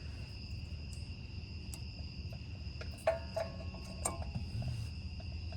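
A few light metallic clinks and taps as a brake pad is worked into the caliper bracket, the loudest about three seconds in and another about a second later. Under them runs a steady, high-pitched trill of crickets.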